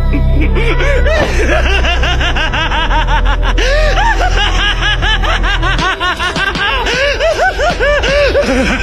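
A man laughing wildly: a long, unbroken run of rapid 'ha' sounds rising and falling in pitch. A low music bed underneath drops away about six seconds in.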